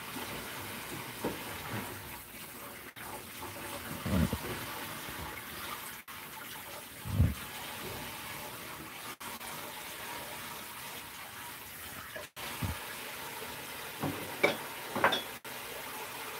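Kitchen tap running steadily into a stainless-steel sink as a bunch of celery is rinsed, with a few brief knocks and thumps.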